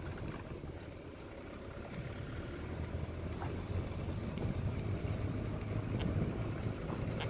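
Car with a seven-speed DSG gearbox rolling slowly in a low gear, a steady low drone from the drivetrain with a few faint ticks; the drone gets somewhat louder after about two seconds. This abnormal noise, which comes off the throttle at low speed, was traced to a worn outer CV joint on the left drive shaft.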